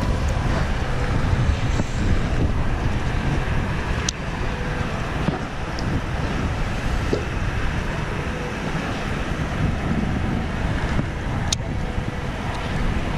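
Steady low rumble of wind buffeting the camera microphone over open water, with two short clicks, one about four seconds in and one near the end.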